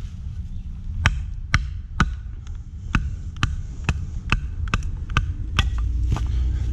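A knife being batoned through small pieces of wood: a baton strikes the knife's spine about a dozen times, at a steady two knocks a second, beginning about a second in.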